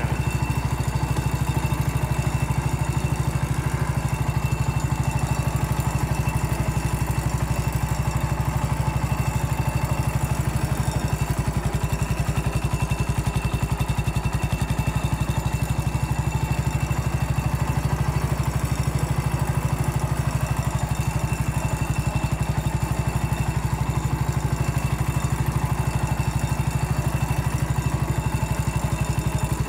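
Massey Ferguson MF-14 garden tractor engine running steadily while the tractor is driven along, with a fast even pulsing that holds the same level throughout.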